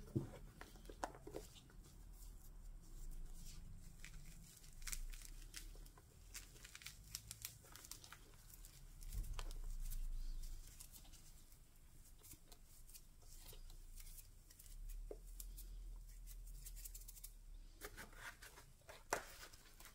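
Faint, irregular rustling and crackling of hands in thin plastic gloves crumbling wet potting soil off a succulent's roots, with many small scattered clicks.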